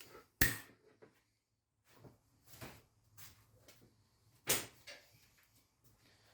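A few scattered knocks and clunks, like something being handled or set down: a sharp one about half a second in, another about four and a half seconds in, and faint ticks between.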